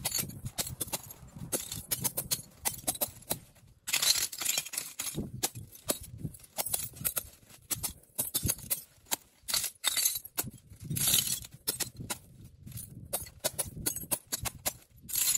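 Irregular clinks, knocks and scrapes of hard building materials being handled, with denser scraping bursts about four seconds in and again around ten to eleven seconds.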